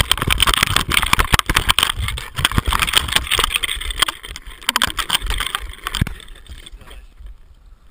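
Muffled splashing and rapid knocking on a GoPro's waterproof housing as the camera is hauled up through the sea surface on a fishing line and grabbed, dying away about six seconds in.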